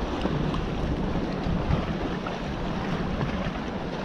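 Steady wind noise on the microphone, with water lapping below.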